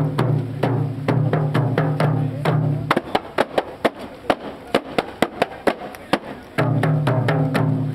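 A group of kompang, Malay hand-held frame drums, beaten by hand in a quick interlocking rhythm. A steady low hum runs behind the drumming and drops out for a few seconds in the middle.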